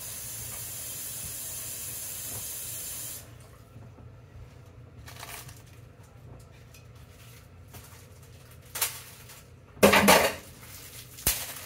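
Kitchen tap running into a sink for hand-washing, shutting off after about three seconds. Then a few small knocks, and a loud short clatter about ten seconds in.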